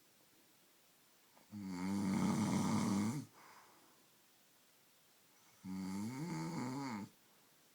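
A man snoring loudly in his sleep: two long snores about four seconds apart, each with a low, wavering pitch, and quiet between them.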